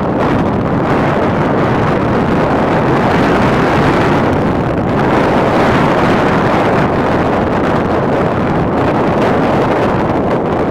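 Wind buffeting the microphone: a loud, steady rushing and rumble that swells and eases slightly.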